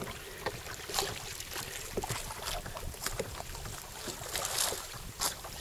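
Water splashing and lapping around a kayak: small, irregular splashes and knocks over a low wind rumble.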